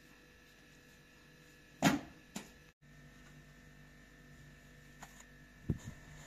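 Dough handled by hand: a heavy thump about two seconds in, a lighter knock half a second later, and another soft thump near the end. A steady low electrical hum runs underneath.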